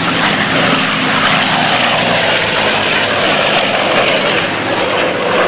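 A WWII F4U Corsair's piston engine and propeller running loud and steady as the fighter flies past overhead.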